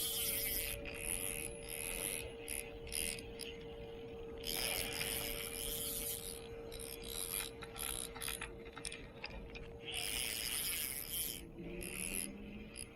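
Fishing reel ratcheting in irregular bursts with short pauses between them, over a faint steady hum.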